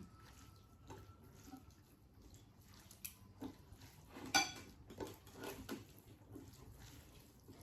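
Faint, scattered clinks and taps of plates and utensils being handled at a meal, with one louder clink about four and a half seconds in.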